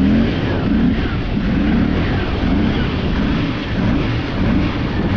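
Can-Am ATV engine running, its pitch wavering up and down, under heavy wind noise and water noise.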